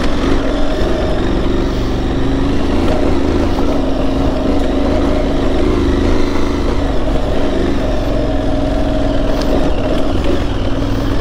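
Aprilia Tuareg 660's parallel-twin engine running at low, fairly steady revs as the motorcycle rides at low speed over a rocky dirt trail.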